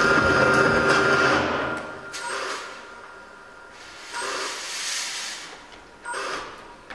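Backing music fades out in the first two seconds. Then a stage fog machine gives short hissing blasts about every two seconds, the second one longer than the rest.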